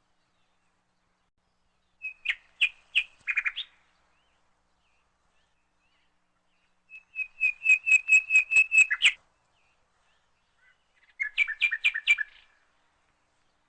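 A bird calling in three bursts of quick, repeated high chirps. The middle burst is a run of about ten notes, and there is silence between the bursts.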